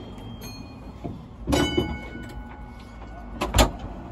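W-class tram under way with a low rumble. About a second and a half in comes a metallic clank that rings briefly with several high tones, and a second knock follows about three and a half seconds in.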